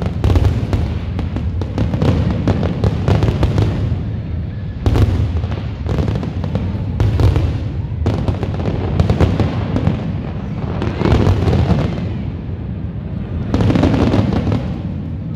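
A dense barrage of aerial fireworks: continuous deep booms overlaid with waves of crackling every second or two. It cuts off suddenly at the end.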